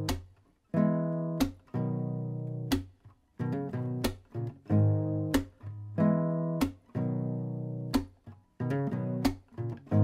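Background music of strummed guitar chords, each struck and left to ring before the next in a steady rhythm.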